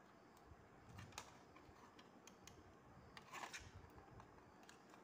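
Faint, scattered plastic clicks and handling sounds of a cable plug being pushed into the back ports of a D-Link router, with slightly stronger fumbling about a second in and again past three seconds.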